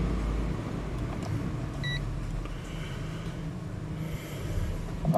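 Low steady rumble of background noise, with a short high electronic beep about two seconds in.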